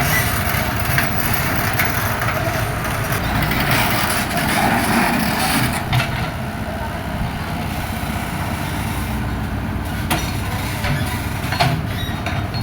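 Komatsu hydraulic excavator's diesel engine running steadily, with a few sharp clanks and knocks from the machine at work, about six, ten and eleven and a half seconds in.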